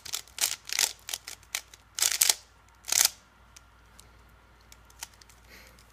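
Rubik's cube being turned quickly by hand, a fast run of plastic clicks and clacks that stops about three seconds in, with a few faint ticks after.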